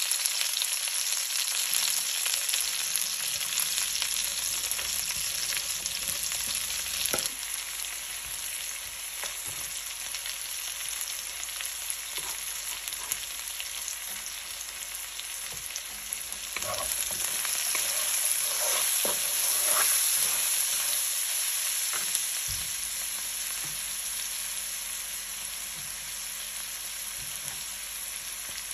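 Sliced sausage, onion and carrot sizzling in oil in a wok, with a wooden spatula stirring and now and then scraping or knocking against the pan. The sizzle swells louder for a few seconds past the middle.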